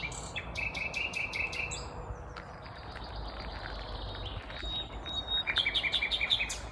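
Nightingale singing: a fast run of repeated notes, then a thin, drawn-out high note, then another fast run of repeated notes near the end, over a steady low background rumble.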